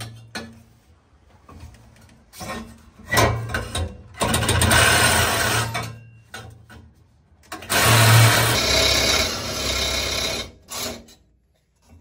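A cordless reciprocating saw cuts through an exhaust pipe in bursts: a short one about three seconds in, a longer run a second later, and another about eight seconds in. It stops just before the end. The factory exhaust is stuck under the truck and is being cut out to remove it.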